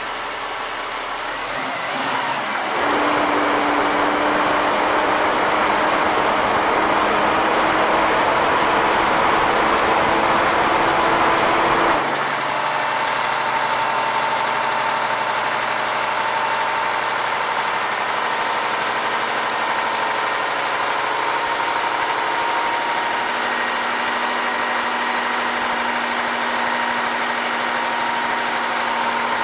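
Kenworth T800 dump truck's diesel engine running with the hydraulic hoist raising the dump bed. The engine picks up about three seconds in and holds a slowly rising note, then drops suddenly to a lower, steady running sound about twelve seconds in.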